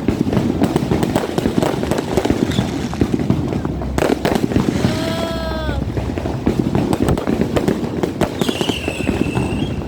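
Fireworks going off in a dense, continuous barrage of bangs and crackles. A brief pitched tone sounds over it about five seconds in, and a high falling whistle-like tone comes near the end.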